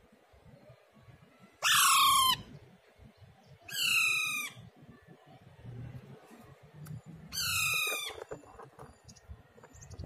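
Young Alexandrine parakeet squawking: three loud, harsh calls, each under a second long, a couple of seconds apart.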